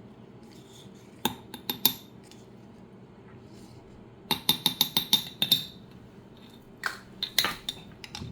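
A metal spoon clinking against a container while honey is spooned into a drink: a few sharp clinks about a second in, a quick run of about a dozen clinks around the middle, and a few more near the end.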